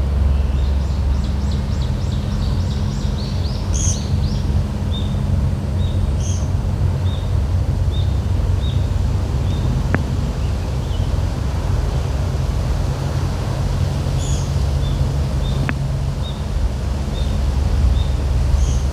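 Steady low rumble of wind on the microphone, under a small bird chirping over and over at an even pace, about four chirps every three seconds, with a few louder higher calls now and then.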